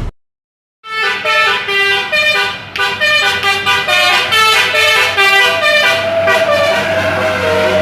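Tour bus DAV basuri telolet musical air horn, starting about a second in, playing a quick melody of short notes that change pitch, then holding one long note that sags slightly in pitch near the end. A steady low hum from the bus's running engine sits underneath.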